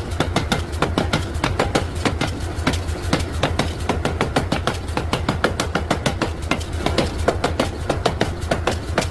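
Fast, even hammer blows on metal during forging, about four or five a second, over a steady low hum.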